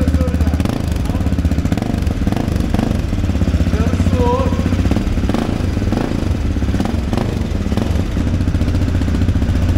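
AJP PR7's single-cylinder engine idling steadily.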